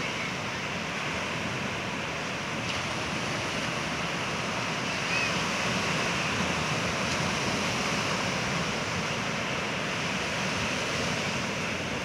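Ocean surf breaking and washing up a sand beach: a steady rush of waves that swells a little louder about halfway through.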